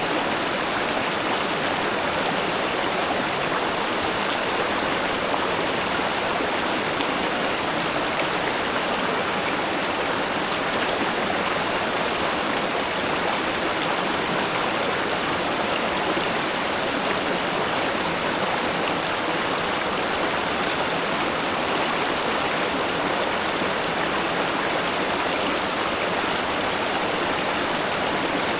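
River water flowing steadily: an even, unbroken rush of water with no change in level.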